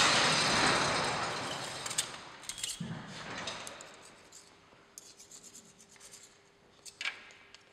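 Rubbing and handling noise of greasy hands working a small metal linkage pin, loudest at first and fading over a few seconds, followed by scattered light clicks and ticks of metal, with one sharper click near the end.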